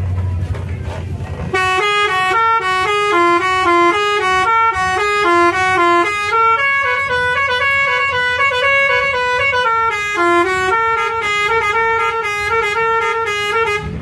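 Bus telolet horn (Basuri multi-tone musical horn) playing a quick melody of short stepped notes, with a few longer held notes partway through, starting about one and a half seconds in. Before it starts, a low engine and road rumble.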